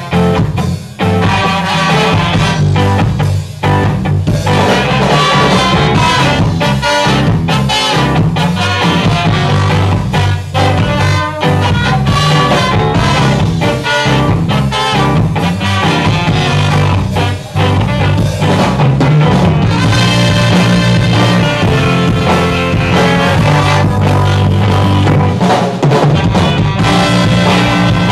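Ska band playing live: a horn section of brass and saxophones over drums and a busy bass line, loud and continuous.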